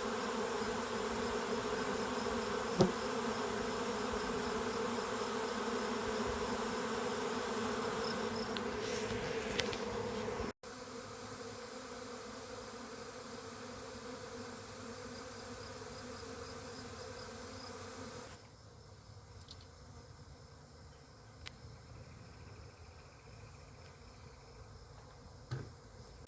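A honey bee swarm humming: the steady buzz of many bees flying around a hive that has just swarmed. The hum breaks off abruptly about ten seconds in and comes back quieter, then drops to a fainter hum later on.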